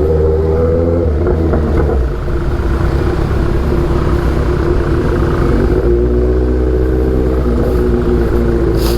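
Kawasaki Z800's inline-four engine running through an aftermarket Austin Racing exhaust, a steady engine note that dips about two seconds in and then holds steady again. A short sharp click near the end.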